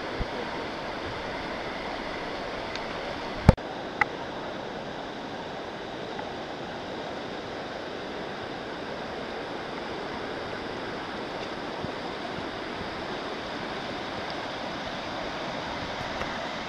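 Steady rushing of a shallow river running over rocky rapids. Two sharp clicks stand out about three and a half and four seconds in, the first the loudest.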